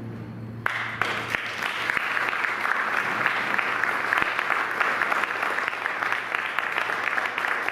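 Audience applauding, the clapping breaking out suddenly under a second in as the quartet's last held chord dies away.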